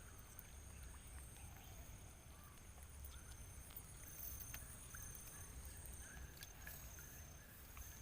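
Near-silent open-air ambience: a faint steady high-pitched insect drone with small rising chirps repeating and a few soft clicks.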